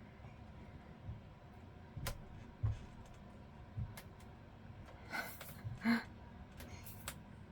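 A few scattered light knocks and clicks, with the loudest near the end, of small objects and craft materials being handled and set down on a work table, over a low steady room hum.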